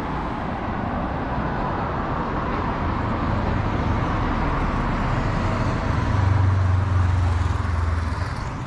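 Road traffic from a street of passing cars and a motorcycle. A vehicle's low engine hum builds, is loudest about three-quarters of the way through, then fades.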